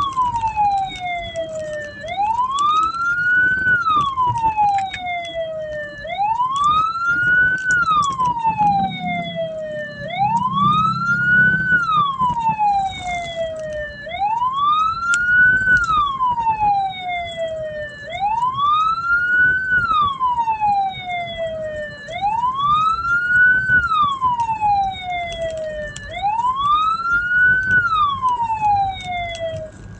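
Hearse's electronic siren on a slow wail: each cycle rises quickly and falls away more slowly, repeating about every four seconds. It stops just before the end.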